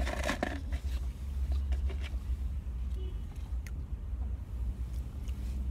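Steady low rumble inside a car cabin, with a few faint clicks and rustles as food is handled.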